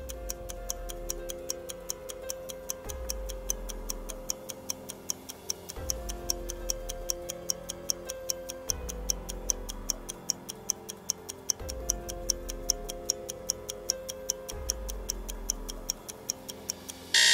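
Stopwatch countdown ticking, steady and evenly spaced, over looping background music with a repeating bass line.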